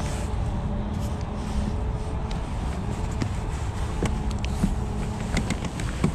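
Wind buffeting the microphone, with the faint steady whir of a spinning reel being cranked and a few small clicks of handling in the second half.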